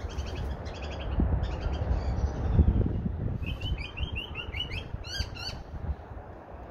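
Australian magpies calling: short clusters of harsh repeated calls in the first two seconds, then a quick run of rising chirps from about three and a half to five and a half seconds in. A low rumble runs underneath, loudest about two and a half seconds in.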